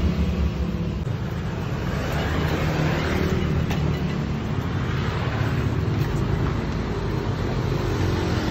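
Steady road traffic: engines of passing vehicles running continuously with a low hum.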